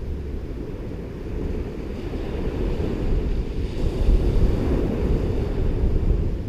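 Ocean surf washing on a beach, with wind buffeting the microphone as a low rumble. The wash swells louder a little past halfway through.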